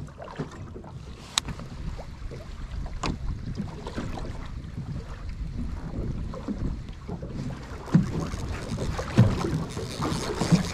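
Wind and water noise on a small fishing boat at sea, with a few sharp clicks; the wind noise grows stronger in the last few seconds.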